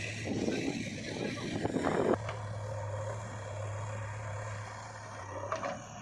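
Loose dry soil pours from a JCB 3DX backhoe bucket into a steel tractor trolley as a noisy rush that stops abruptly about two seconds in. Under it the diesel engine runs steadily, then goes on alone.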